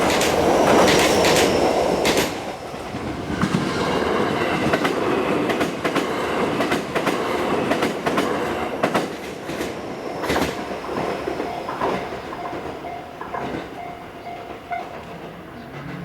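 JR West 287 series electric train running past, its wheels clacking over the rail joints. It is loudest in the first couple of seconds and fades as the train moves away.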